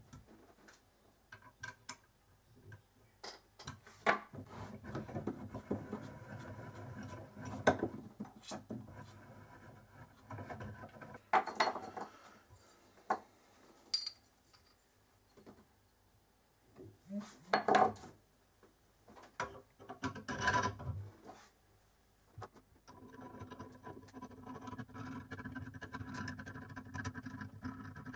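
Metal lathe carriage parts being handled and fitted by hand: scattered clinks and knocks of metal on metal, with two longer stretches of scraping and rubbing.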